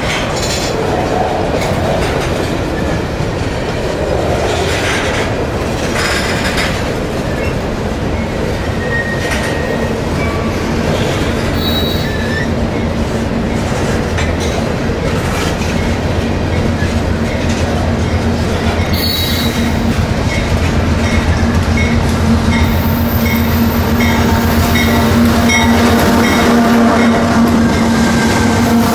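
Freight train passing close: loaded covered hopper cars rolling by, their wheels squealing on the curve in brief high-pitched bursts. In the last third a Union Pacific diesel locomotive draws up and passes, and a steady low engine drone builds until it is the loudest sound.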